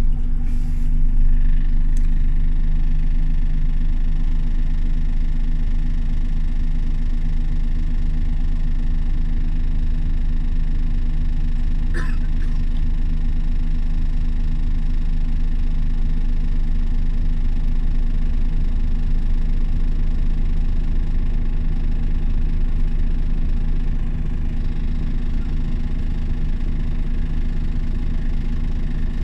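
Engine of a Scania OmniLink CL94UA bus running steadily at an even pitch, with one short click about twelve seconds in.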